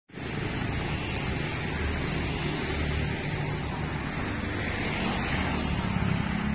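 Street traffic: motorbikes and cars passing in a steady mix, with a motorbike engine passing close near the end.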